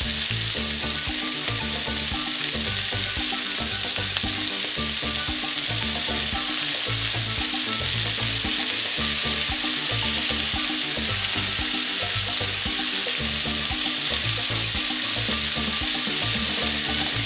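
Sliced onions and bell peppers sizzling steadily in butter and olive oil in a sauté pan, with soft background music underneath.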